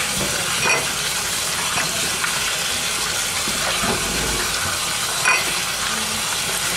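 Kitchen faucet running a steady stream of water onto basil leaves in a plastic colander, with hands turning the wet leaves under the stream. Two brief knocks break the steady splashing, about a second in and near the end.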